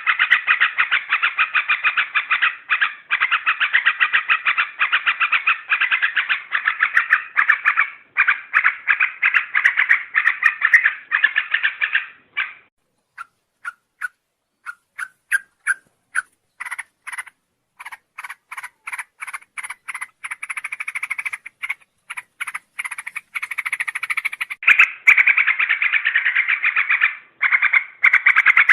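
Yellow-vented bulbul (trucuk) singing a lure song of fast, chattering, repeated notes. The notes come densely for about twelve seconds, thin out into separate notes for about ten seconds, then turn dense and rapid again near the end.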